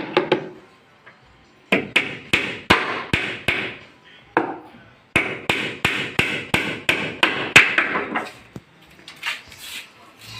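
Hammer striking wood in two runs of quick blows, about four a second, with a single blow between them and a few lighter taps near the end.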